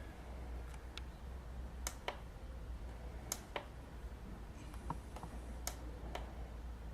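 Faint, sharp clicks, about seven spread irregularly over the seconds, from buttons being pressed on a gas bird scarer's electronic timer panel while its clock is set.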